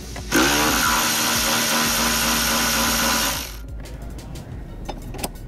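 Cordless electric ratchet spinning a battery hold-down bolt loose: it whirs up a moment in, runs steadily for about three seconds and stops sharply, followed by a few light clicks.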